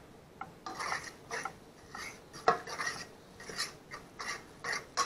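A utensil stirring and scraping fried rice around a nonstick pan: repeated short scraping strokes, about two a second, with one sharper knock about two and a half seconds in.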